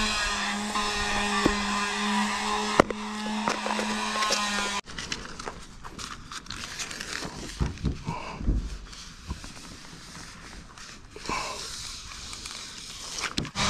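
A steady low hum with an overtone above it stops abruptly about five seconds in. After that come quieter crinkles and clicks of RV seal repair tape being handled and its paper backing peeled off.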